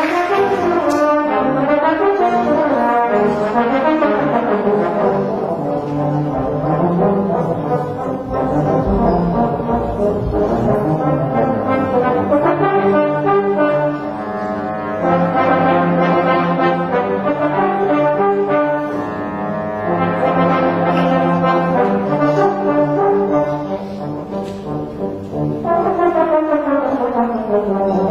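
Low-brass ensemble of trombones, tubas and euphoniums playing together in chords and moving lines; near the end a run of notes falls in pitch.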